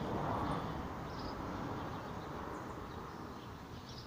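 Steady outdoor background noise with a few faint, short, high chirps.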